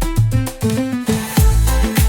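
Cumbia dance music with a bass line and steady beat, pitched instrument lines on top; the bass drops out briefly in the middle before the full beat returns.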